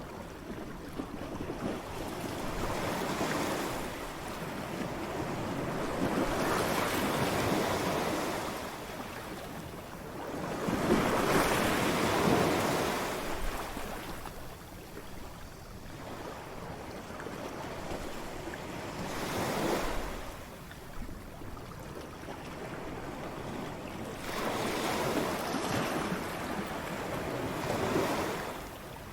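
Ocean waves crashing, one after another: about five or six surges of surf that each swell and fade over a few seconds, the loudest about twelve seconds in.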